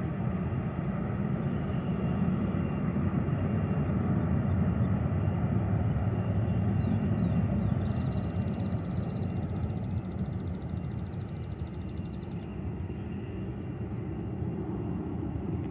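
Boeing 737-800's CFM56-7B turbofan engines rumbling at takeoff power as the airliner climbs away, the rumble building over the first few seconds and easing off in the second half. About halfway through, a high steady whistling tone joins for four or five seconds and cuts off abruptly.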